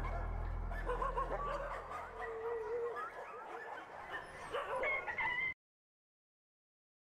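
A dog whimpering and yipping in short, wavering calls while music fades out over the first couple of seconds. All sound cuts off abruptly about five and a half seconds in.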